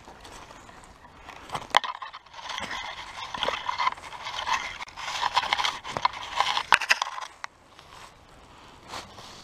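A small hand digging tool scraping and chopping into forest soil among dry leaves, in two spells of scratchy scraping with a few sharp knocks, the loudest near the second mark and just before the seventh.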